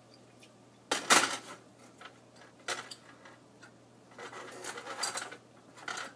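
Dishes and utensils being handled on a kitchen counter: a few sharp knocks and clatters, the loudest about a second in, with a longer rattling clatter around four to five seconds in.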